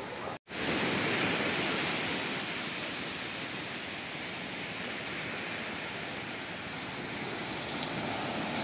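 Sea surf washing on a beach, a steady rushing noise that cuts out for a moment about half a second in.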